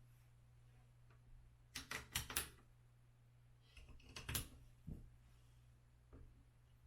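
Light clicks and taps of small screws and hand tools being handled during assembly: a quick cluster about two seconds in, another about four seconds in, and a single tap near five seconds, over a faint steady hum.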